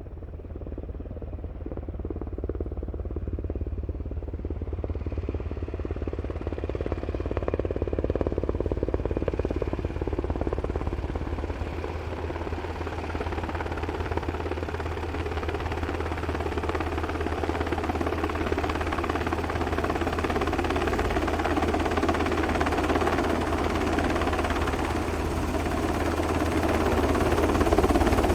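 Helicopter in flight, its rotor beating rapidly over a steady engine and turbine noise. It grows louder over the first several seconds, then holds steady.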